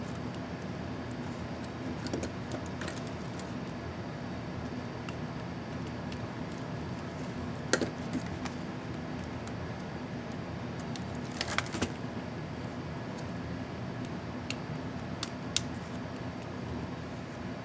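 Scattered small, sharp clicks and taps from handling small plastic laptop keyboard parts, with a quick cluster of them a little past the middle, over a steady background hum.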